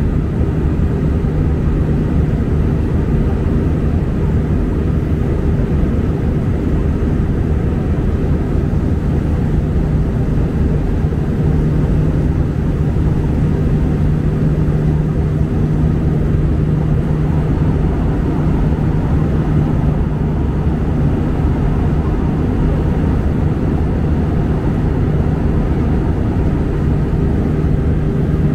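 Airbus A319 cabin noise in flight: a steady drone of jet engines and rushing air, with a low hum that does not change.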